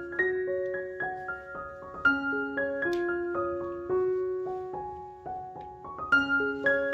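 Background music: a gentle piano melody of single struck notes that fade away, its phrase beginning again about two seconds in and once more near the end.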